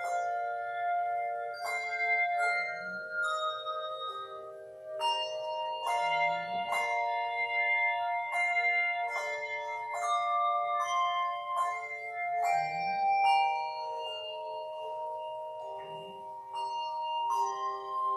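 Handbell choir ringing a piece: groups of struck handbells sound together every second or so, each note ringing on and overlapping the next.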